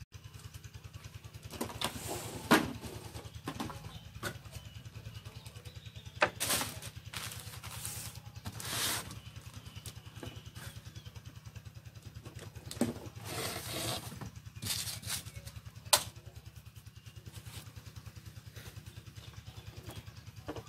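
Rustling and knocking from a cardboard box and a boxed 1/10-scale RC crawler truck being handled and lifted out, in scattered bursts with a sharp knock near the end. Under it runs a steady, rapidly pulsing low hum.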